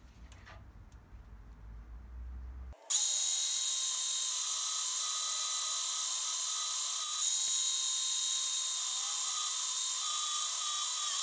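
Portable band saw cutting half-inch mild steel square tubing: the blade makes a steady, high-pitched screech in the steel, starting about three seconds in after a few faint clicks. The blade is dull, by the maker's own caption.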